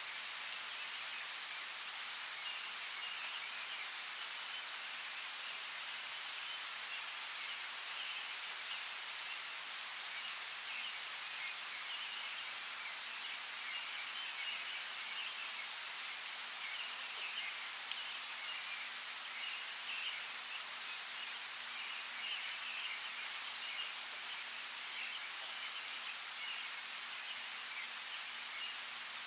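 Steady rainfall with a dense patter of drops, a few single drops ticking louder here and there. A faint, fluttering chirping of birds runs under the rain.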